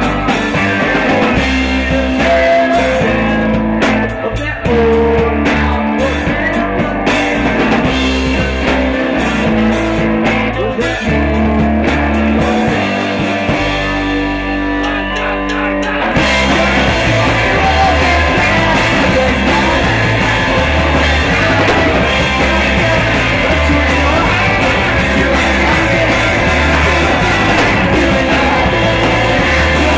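Live rock band playing: electric guitar, bass, drum kit and saxophone, with singing. About halfway through, the band comes in fuller and louder.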